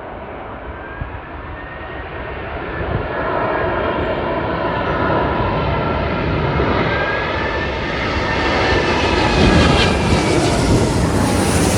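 Emirates Airbus A380 on final approach, its four Engine Alliance GP7200 turbofans giving a steady roar with a gliding whine that shifts in pitch as the jet comes closer, growing louder over the first half and staying loud.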